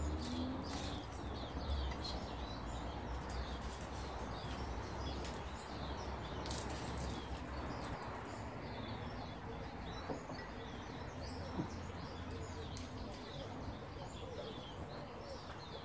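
Small birds chirping in the background over a steady low outdoor hum, with two light knocks about two-thirds of the way through.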